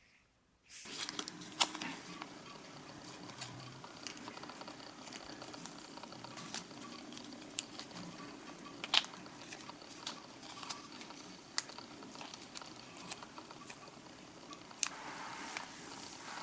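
Hands handling a small plastic Kinder Joy toy and its sticker sheet close to the microphone: rustling with scattered sharp clicks and taps, starting about a second in.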